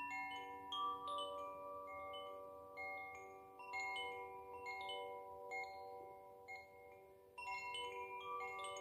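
Koshi Ignis chime ringing: its tuned metal rods are struck at irregular moments, so the clear, bell-like notes overlap and hang on. The notes come from its tuning of G, B, D and A. The strikes thin out and fade to a brief lull about seven seconds in, then a new cluster of strikes comes in.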